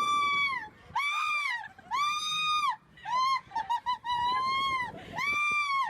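An animal calling loudly over and over: a series of drawn-out, even-pitched calls about one a second, with a few shorter, quicker ones in the middle.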